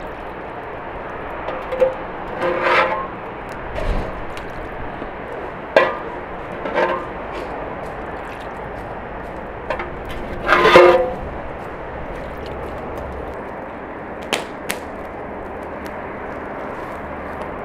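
A handful of short clinks and knocks, some with a brief ringing tone and the loudest about eleven seconds in, over a steady background hiss.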